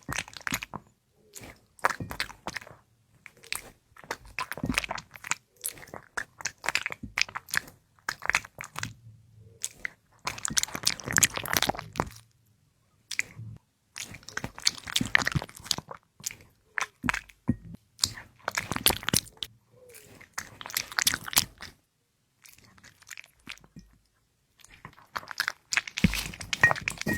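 A small dog eating, chewing and crunching its food in repeated bouts of quick, sharp clicks, with brief pauses between mouthfuls.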